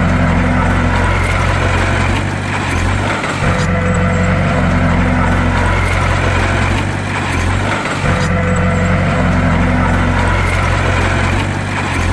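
Heavy bulldozer diesel engine running steadily, with a deep hum and the same rise and fall in its sound repeating about every four and a half seconds.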